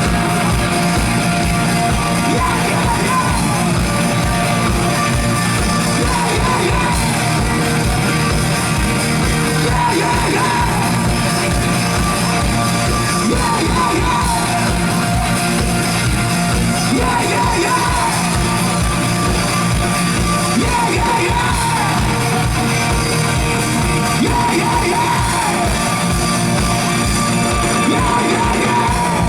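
Loud live rock music: a band playing with fast, driving drums while a singer sings and yells over it.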